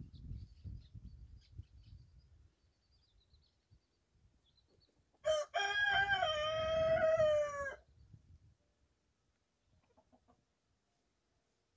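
A rooster crows once, a single long call of about two and a half seconds in the middle, the loudest sound here. Before it there is a low rumble and faint, thin, high peeping from chicks.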